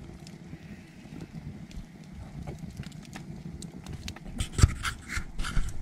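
Wood fire crackling in an open fire pit, with scattered sharp pops over a low steady rumble; the pops and crackles grow denser and louder about four seconds in.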